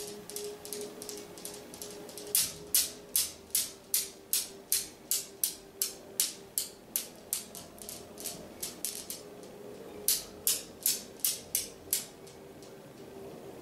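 Steel balls of a Newton's cradle clicking against each other in an even rhythm, about two to three clicks a second, set swinging by a cat's paw. The clicks fade off, come back loudly about ten seconds in, and stop shortly before the end.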